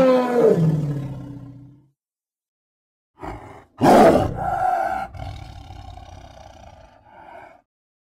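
Postosuchus roar sound effects: a growling call that falls in pitch and fades over about two seconds, then after a pause a short grunt and a loud, harsh roar about four seconds in that trails off into a steadier held call, fading out before the end.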